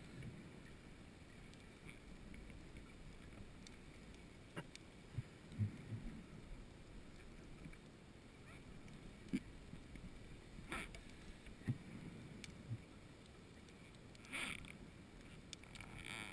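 Faint underwater noise heard through a dive camera's housing: a low steady hiss with scattered small knocks and clicks, and three short hissing bursts in the second half.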